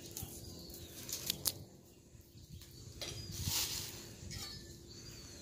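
Quiet hand-work of peeling garlic: two small sharp clicks a little over a second in and a brief papery rustle about halfway through, with faint bird chirps in the background.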